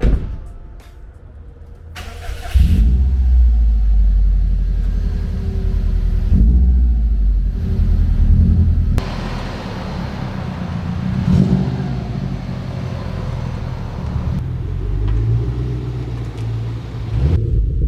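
A car engine starts about two and a half seconds in and keeps running, its revs rising and falling.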